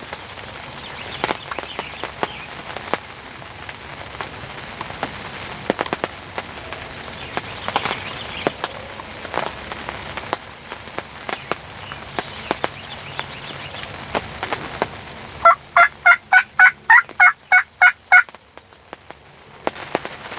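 Rain pattering with sharp drop clicks, then about fifteen seconds in a wild turkey gobbles once, a quick run of about a dozen pulsed notes lasting under three seconds.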